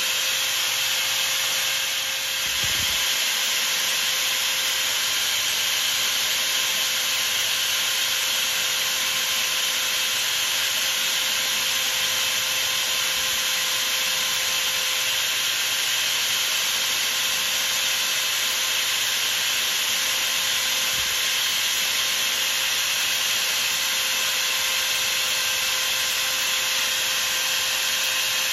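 Sandpaper rubbing on a metal workpiece spinning in a small lathe's collet chuck: a steady hiss over the machine's constant motor whine.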